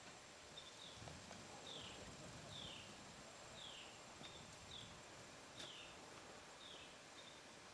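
Faint bird calls: a short falling chirp repeated about once a second, with brief level chirps in between, over quiet outdoor background.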